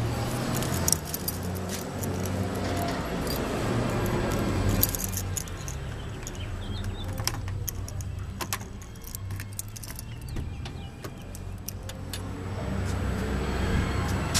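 A ring of car keys jangling and clicking in a hand as it works the outside door handle of a 1994 Cadillac DeVille, with a steady low rumble underneath. The clicks come thickest in the middle stretch, and the door is pulled open near the end.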